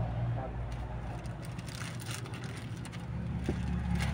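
Clothes and plastic-wrapped items rustling and knocking as they are lifted out of a cardboard box, over a steady low hum.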